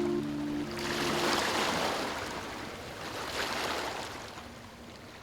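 Surf washing onto a beach: one wave surges up about a second in and another around three and a half seconds, with the sound fading away toward the end.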